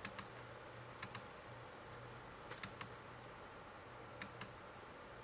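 Faint computer mouse clicks, mostly in quick pairs a second or so apart, as a laptop user pages through die templates in press-brake control software.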